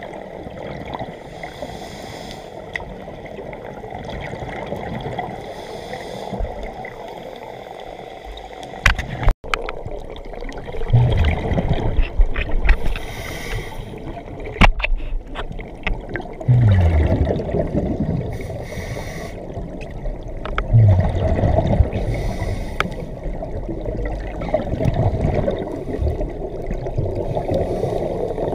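Scuba diver breathing underwater through a regulator, heard through the camera housing: a short hiss on each inhale and a rumbling gush of exhaled bubbles every five seconds or so, over a steady water noise. The sound cuts out briefly about nine seconds in.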